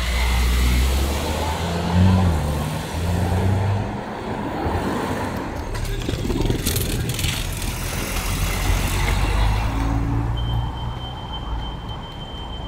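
City street traffic: a motor vehicle's engine rumbling close by, with a brief hiss about six and a half seconds in and a thin, steady high tone near the end.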